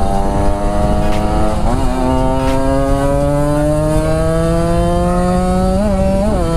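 Kawasaki Ninja two-stroke motorcycle engine pulling under throttle. Its pitch dips briefly about two seconds in, then climbs slowly. A jingling rattle comes with it, which the rider suspects is something loose in the KIPS power valve.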